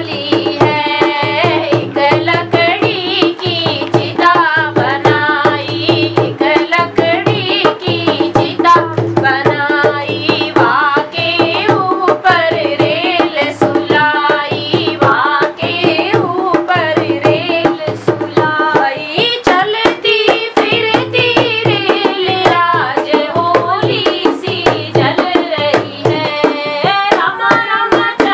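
A girl singing a Hindi devotional bhajan while playing a dholak, a rope-tensioned two-headed barrel drum, with a steady rhythm of hand strokes under her voice.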